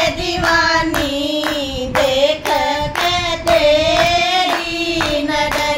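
Group of women singing a Hindi devotional bhajan to Shiva in unison, drawing out long held notes, while hands clap a steady beat.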